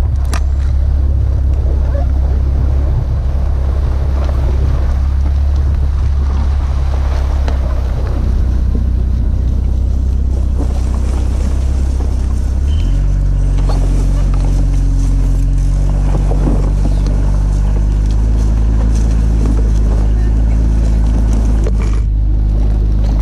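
BMW Z4 E85's inline-six engine running at low speed as the lowered car rolls across a lawn, a steady low drone whose pitch changes abruptly about 13 seconds in, with tyre and wind noise beneath it.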